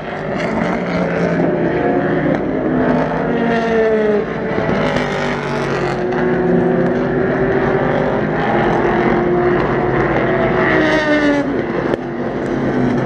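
Racing car engines running on track, several cars passing one after another, their pitch rising and falling as they go by and change gear.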